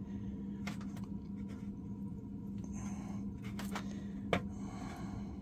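Light clicks and taps of small handling while a drop of electrolyte is taken from a battery cell for a density check, with a sharper click about four seconds in, over a steady low hum.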